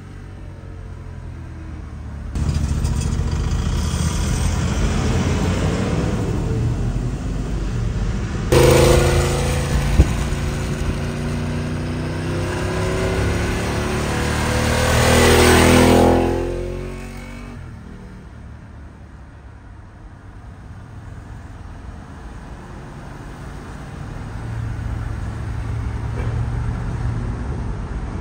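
Ducati 749R's 90-degree L-twin through a Termignoni full exhaust, revving up a couple of seconds in, then accelerating hard and much louder, building to a peak before fading away, leaving steady traffic noise.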